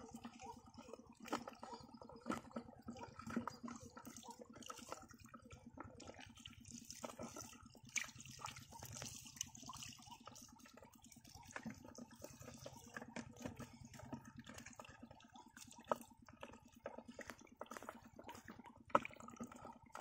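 Faint wet splashing, squelching and dripping of hands groping through soft mud and shallow muddy water, with many small scattered clicks.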